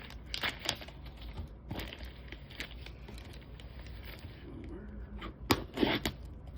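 Packaging from a shipping box being handled: rustling with scattered clicks, and a few louder sharp snaps about five and a half to six seconds in.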